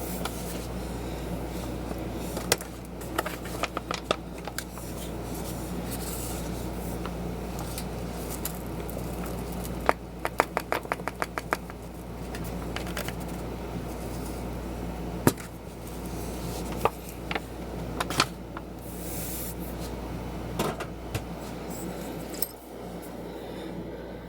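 Kitchen utensils and containers being handled: scattered clicks, knocks and scrapes, with a quick run of about eight clicks about ten seconds in, over a steady low hum.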